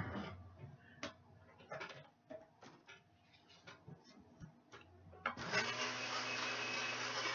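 Faint, scattered light clicks and knocks. About five seconds in, a much louder steady sound with a low hum starts and keeps going.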